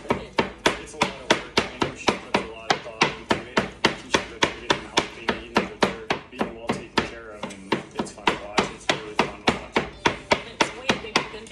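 Kitchen knife mincing garlic cloves on a plastic cutting board: a steady run of sharp chops, about four a second.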